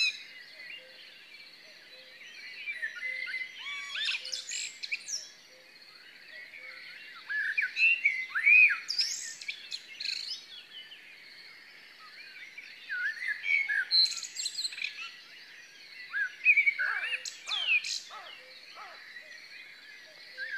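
Several wild songbirds singing and chirping, with quick overlapping phrases and trills coming in bursts and short lulls between them.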